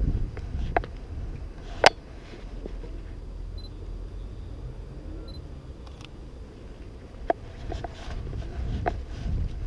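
Sony a7R II camera shutter clicking. There is one sharp shutter click about two seconds in and a few fainter clicks later, with two short high beeps in between, over low street background noise.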